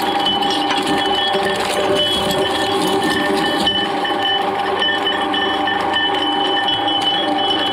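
Twin-shaft shredder running with a steady whine while its toothed rotors crush green glass wine bottles, with scattered clinks and cracks of breaking glass.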